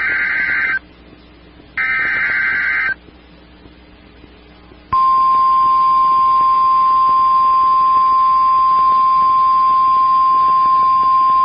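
NOAA Weather Radio emergency alert signal: two bursts of SAME digital header tones, each about a second long and a second apart. After a short pause, the steady single-pitch 1050 Hz warning alarm tone starts about five seconds in.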